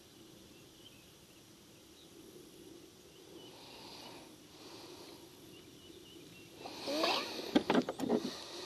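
Faint outdoor background, then near the end a creak and a few sharp knocks and clicks as gear is handled in the well of a plastic kayak.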